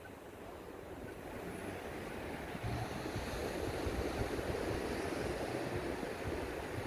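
Sea surf washing onto a beach, swelling over the first few seconds and then holding steady. From about three seconds in, wind buffets the microphone with a low rumble.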